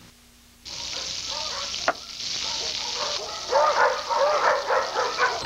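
Food sizzling in a frying pan, cutting in suddenly after a brief near silence, with a sharp click near the two-second mark. From about three and a half seconds in, a dog barks repeatedly over the sizzle.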